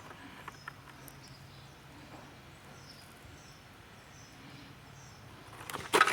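Quiet room tone with a steady low hum and faint, repeated high chirps of birds. A short, loud burst of handling noise comes near the end.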